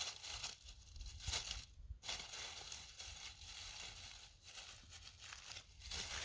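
Dry fallen leaves rustling and crackling in irregular bursts.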